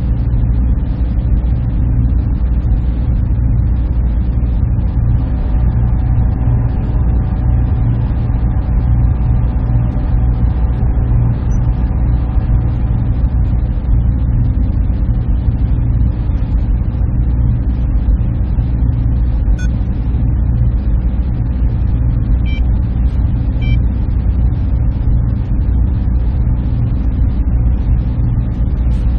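Server room machine hum: a steady, unbroken drone of cooling fans and air handling, heaviest in the low end, with faint steady tones above it.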